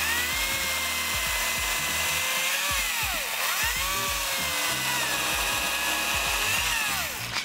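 Makita DUC254 18 V brushless cordless chainsaw cutting through an elder log with a steady electric whine. Its pitch sags about three seconds in as the chain slows under load, recovers, then drops again and the saw stops near the end.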